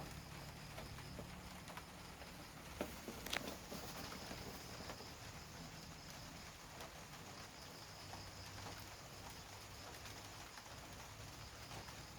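Mitsubishi C48-GM 48-inch ceiling fan running with a faint low motor hum, and a few sharp clicks about three seconds in.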